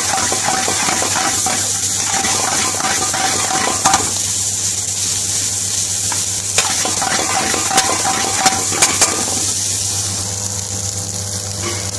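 Minced meat frying and sizzling in a frying pan as it is stirred and tossed, with a metal spoon clicking sharply against the pan a few times in the middle stretch.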